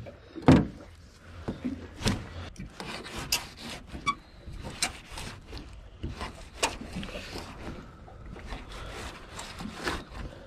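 A filleting knife scraping and slicing along a snapper fillet on a hard cutting surface as the fillet is skinned, with rubbing, scraping and scattered knocks as the fish is handled; the sharpest knocks come about half a second and two seconds in.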